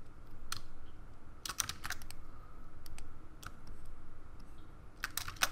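Clicks of a computer keyboard and mouse: a few scattered single clicks, with a quick run of several keys around a second and a half in and again near the end.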